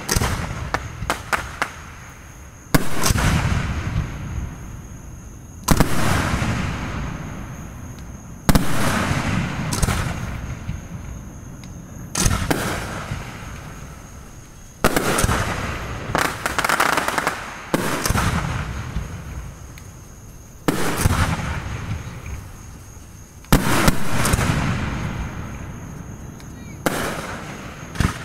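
Aerial fireworks shells bursting one after another, a sharp bang every two to three seconds, each followed by a rolling echo that fades away, with lighter crackles in between.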